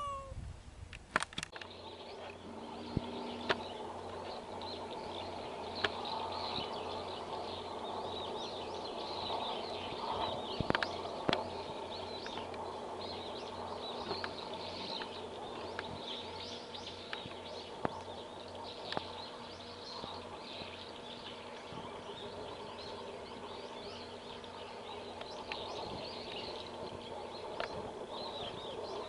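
Many small birds chattering and chirping continuously, with a low steady hum underneath and a few sharp clicks scattered through.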